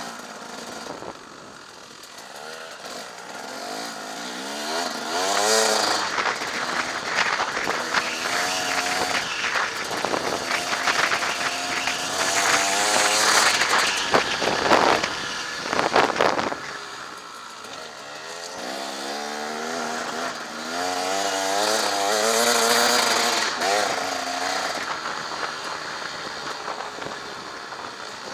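Husaberg TE 300 two-stroke enduro engine revving up and dropping back again and again as the bike rides a dirt trail, heard from the bike-mounted camera. The hardest acceleration comes in the middle.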